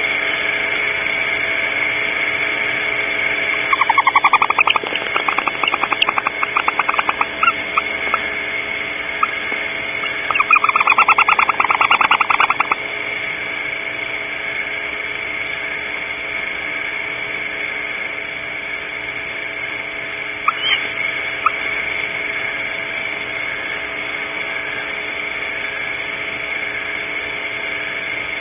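An owl calling: a stuttering run of rapid pulsed trills about four seconds in, then a denser, steadier trill around ten seconds in, over a steady electronic hiss and hum. A few faint clicks follow later.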